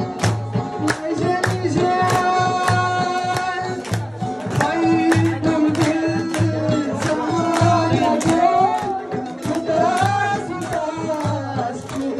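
Chitrali folk song: a male voice singing over a plucked Chitrali sitar, with a drum keeping a steady beat.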